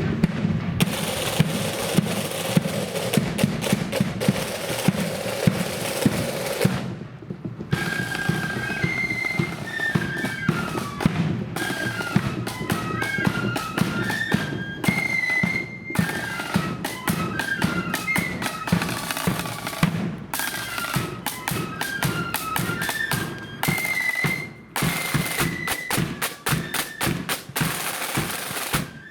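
Marching flute band with snare and bass drums: about seven seconds of rhythmic drumming, a brief break, then the flutes come in playing a melody over the drums.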